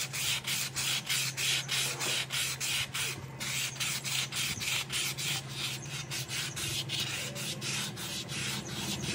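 Fine sandpaper rubbed back and forth by hand over the steel hub of a Bajaj Discover 125's starter clutch gear, a steady scraping at about three strokes a second. The sanding smooths out pitting on the hub, which causes the engine noise.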